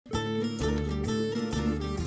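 Background music led by a plucked string instrument over a bass line, the notes changing about every half second; it starts out of silence in the first instant.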